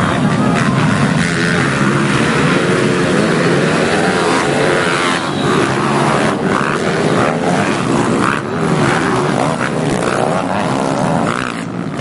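A pack of pit bikes racing on a dirt track: several small motorcycle engines run at high revs together, their overlapping pitches rising and falling as riders open and close the throttle.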